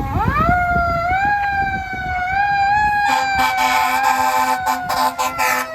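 Federal Q2B mechanical siren on a fire engine winding up in pitch and wailing. From about three seconds in, air horns sound over it in a run of short blasts. The siren's pitch slowly sags near the end.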